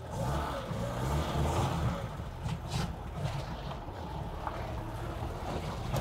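Old Lada sedan driving off on wet pavement: its engine runs with the pitch rising and falling as it pulls away, with tyre and road noise.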